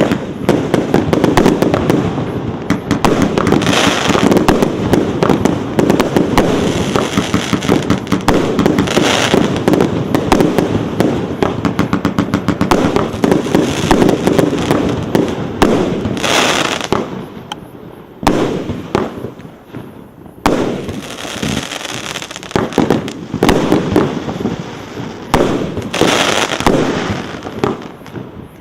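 Bambucha multi-shot firework battery (cake) firing: a dense, rapid string of launch reports and bursts. It eases off for a few seconds around two-thirds of the way through, then resumes.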